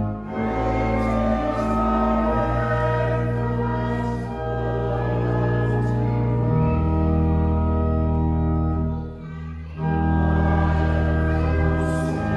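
Congregation singing a hymn to church organ accompaniment in held, sustained chords, with a brief break between phrases about nine seconds in.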